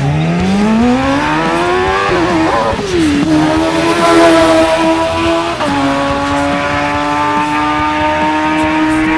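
High-revving race vehicle engines. One accelerates hard, its pitch rising for about two seconds; then engines are held at steady high revs, the pitch stepping down once about halfway through.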